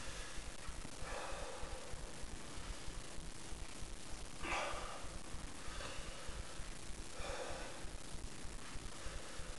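A man breathing hard through his open mouth, with three long breaths out a few seconds apart: panting against the burn of a Carolina Reaper chili pepper.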